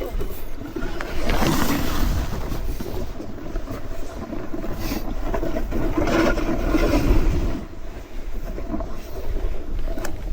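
Snowboard sliding and scraping over snow, swelling louder twice, with wind rumbling on the camera microphone.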